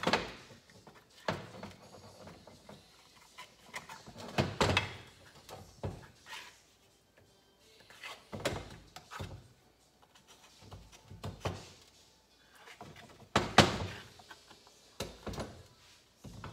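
Irregular knocks and clunks of an aluminium motorcycle crankcase being worked apart by hand and with a red-handled tool, the 1975 Kawasaki G7 100 two-stroke engine's case halves shifting and knocking on a metal workbench. There are about a dozen sharp knocks, some in quick pairs, with quiet gaps between.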